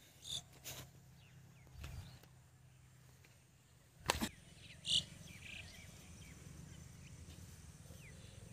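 Sonalika tractor's diesel engine running faintly and steadily, with a few scattered knocks on top, the loudest about four seconds in.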